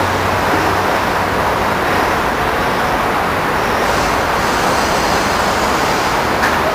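Steady, even roar of distant road traffic, with a faint click near the end.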